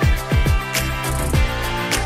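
Background music with a steady drum beat: a regular kick drum and sharp hi-hat or snare hits over sustained notes.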